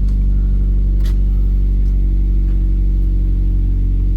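Mazda2 engine idling steadily, with a faint click about a second in.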